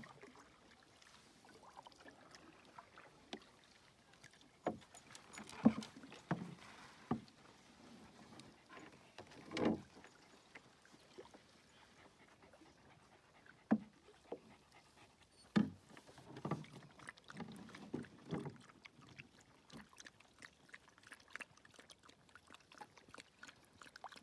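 Canoe on calm water: irregular knocks and short splashes of a paddle against the hull and in the water, in two clusters.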